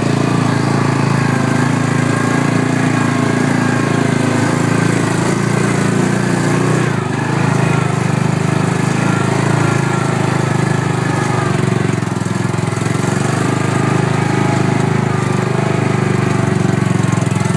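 Off-road four-wheel-drive vehicle's engine running steadily, with a change in its note about seven seconds in.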